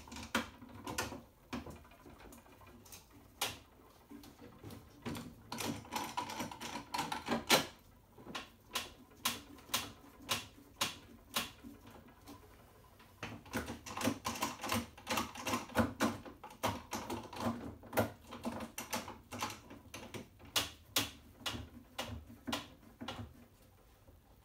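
Bar clamps being tightened and adjusted on a glue-up of Douglas fir boards: irregular clicks and knocks of the clamp handles and jaws and the wood, several a second, thinning out briefly about halfway through.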